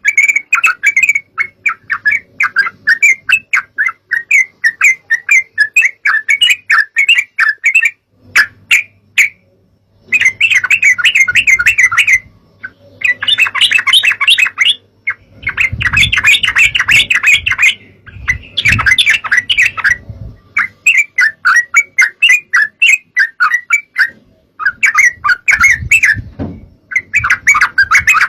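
Yellow-vented bulbul (trucukan) chattering in fast runs of short notes, in several bursts broken by brief pauses.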